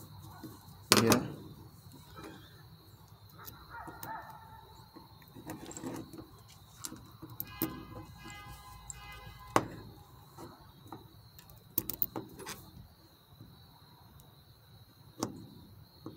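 Small clicks, taps and knocks of a chainsaw carburetor, its small parts and screwdrivers being handled and set down on concrete, with a sharp knock about a second in. A faint steady high tone runs underneath.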